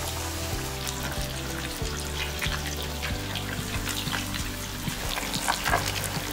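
Background music over battered fish shallow-frying in hot oil. The oil crackles and spits, and the spattering gets denser and louder from about four seconds in.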